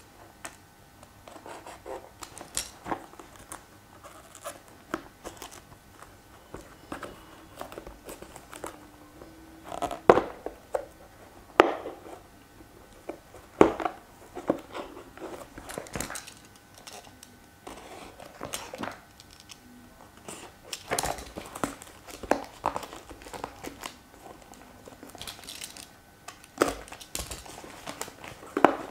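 Clear plastic shrink-wrap being torn and peeled off a cardboard phone box, crinkling and crackling in irregular bursts as the box is turned in the hands.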